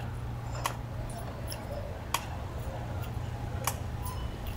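Metal crutch tips tapping on the pavement as a man walks on crutches with one leg held up, a sharp tap about every second and a half, over a low steady hum.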